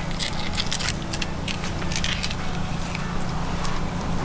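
Fillet knife slicing along a Cero mackerel's backbone and skin, a run of short crackling, scraping strokes as the fillet is cut free. Under it runs a steady low mechanical hum.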